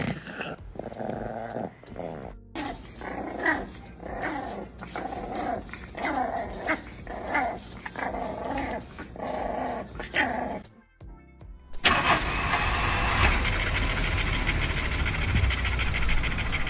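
A small dog growling, then a puppy growling and yapping in short bursts about twice a second. After a brief pause, a French bulldog's loud, rapid rasping pant, likened to an engine starting, fills the last five seconds.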